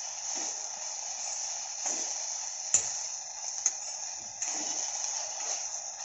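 Soaked moth bean sprouts sizzling in oil in a kadhai as they are sautéed: a steady frying hiss, with a few sharp clicks of the spatula against the pan.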